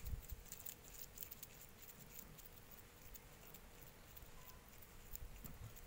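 Faint soft patting and rustling of hands squeezing crumbly coconut laddu mixture into balls over a steel bowl, with light scattered ticks.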